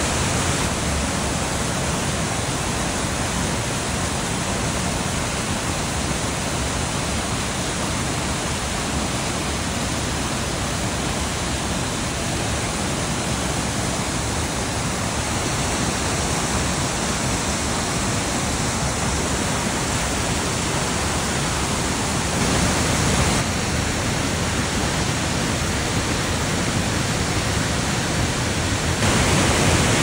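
Mountain waterfall: a steady rush of white water falling over rocks, a little louder in two steps in the second half.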